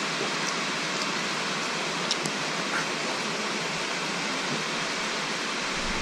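Steady, even rainfall, with a couple of faint clicks about two seconds in.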